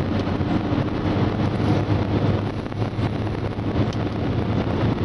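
Ford Transit van's 170 hp turbodiesel engine heard from inside the cab, pulling steadily in fourth gear at speed, with road and wind noise.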